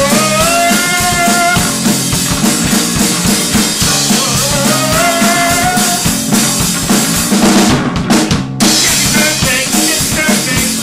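Amateur rock band playing live: a drum kit keeps a driving beat under electric guitars. The band breaks off briefly about eight seconds in, then comes straight back in.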